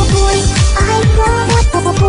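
Electronic dance music used as a background track, with a fast kick drum beating about four times a second under a synth melody.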